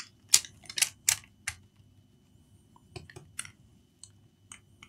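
Light, sharp clicks and taps of hands handling a laptop motherboard in its plastic case. They come in a quick cluster in the first second and a half, again around three seconds in, then twice more singly.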